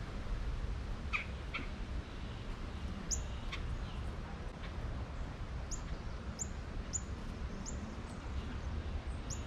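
Wild birds calling in trees: two short calls about a second in, then a run of sharp, high chip notes, each falling in pitch, repeated roughly every two-thirds of a second. A steady low rumble lies underneath.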